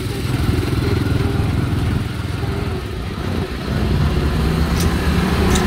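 Small motorcycle-type engine running steadily close by while under way, easing slightly around the middle and picking up again.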